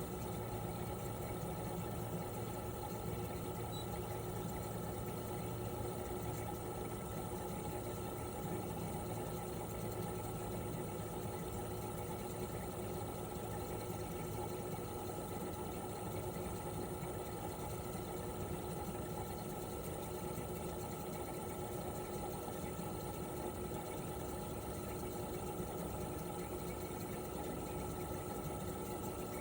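Toshiba RAS-285BAD mini-split outdoor unit running steadily in cooling mode: its twin rotary inverter compressor hums with a few steady tones over the rush of the propeller fan.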